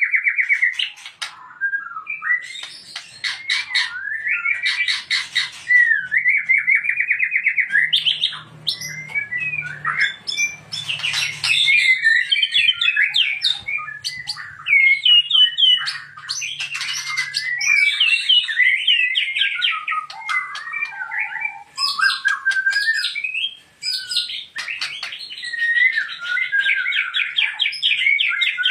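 White-rumped shama (murai batu) singing a loud, varied, almost unbroken song of rapid trills, gliding whistles and quick chattering note runs.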